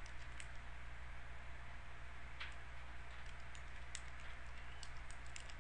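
Faint computer keyboard keystrokes, a few scattered clicks with a cluster near the end, over a steady low electrical hum and hiss.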